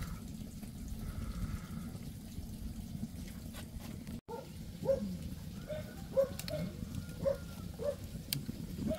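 An animal gives a string of short, pitched calls over a steady low background rumble. The calls begin after the sound drops out for an instant about four seconds in, and repeat roughly once or twice a second.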